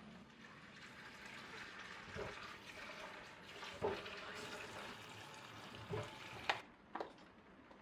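Water running steadily with a few knocks of objects, cutting off suddenly near the end, followed by one more knock.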